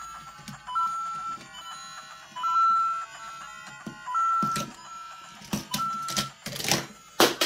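LEGO Super Mario interactive figure's built-in speaker playing a short beeping electronic tune of stepping notes. In the last three seconds there are several louder knocks and rustles from the plastic figure and bricks being handled.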